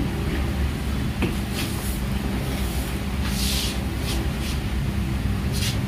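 A steady low hum of running workshop equipment, with a few short hisses; the loudest hiss comes about three and a half seconds in.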